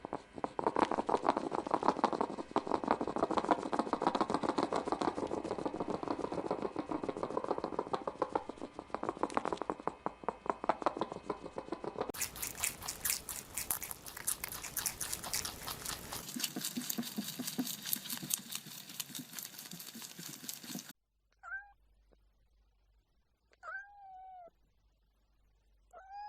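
A long stretch of dense, crackling, rustling noise, then three separate meows from a domestic cat near the end, each rising and falling in pitch.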